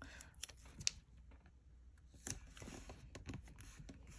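Faint handling noises of masking tape rolls being picked up and set down: scattered light clicks and taps, with a soft rustle about two seconds in.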